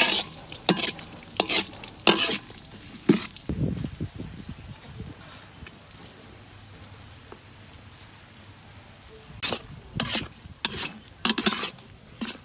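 Metal spatula scraping and stirring around a steel wok in quick strokes, over garlic and star anise frying in oil. Through the middle the stirring stops and only a quieter steady sizzle of the bubbling mixture is left, then the scraping starts again near the end.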